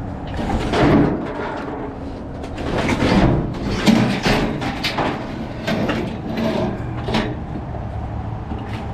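Irregular scraping, rustling and knocking as junk is shifted and pulled around in a dumpster, over a steady low hum.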